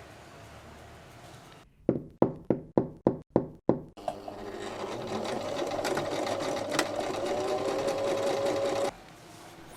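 About seven quick, sharp hammer strikes, roughly three a second, then a sewing machine stitching shoe leather runs steadily for about five seconds and cuts off suddenly.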